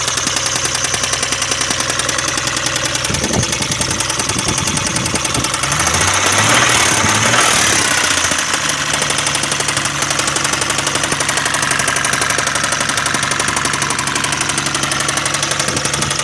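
Isuzu 6VD1 V6 engine running with a fast, even knock from the top end, the engine speed rising briefly about six seconds in. The owner cannot tell whether it is a hydraulic lifter or something worse, after the heads were removed, resurfaced and fitted with new gaskets.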